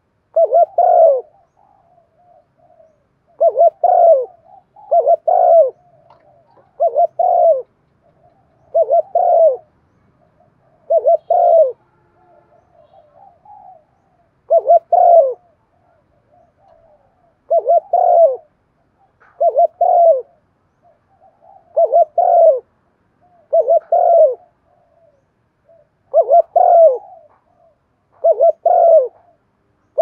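Spotted dove cooing in the rapid 'thúc gù' style: about a dozen short, loud coos repeated every couple of seconds, with faint soft notes between them.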